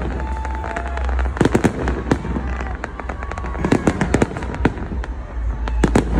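Aerial fireworks exploding in quick succession: many sharp bangs and crackles over a low rumble.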